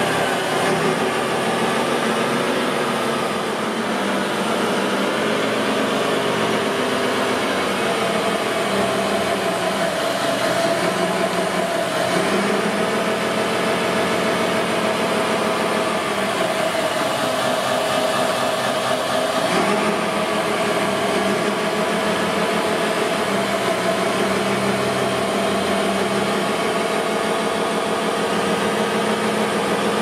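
Radio-controlled construction model machines running, their motors giving a steady mechanical whine whose tones shift as they work.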